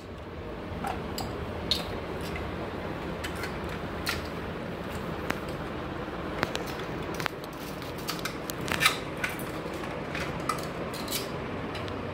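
Light, scattered clicks and clatter of small plastic and metal toy kitchen dishes, pots and cups being picked up and set down, over a steady background hum.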